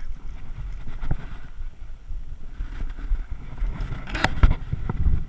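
Wind buffeting the microphone in uneven low rumbles, with a short burst of sharp clattering sounds about four seconds in.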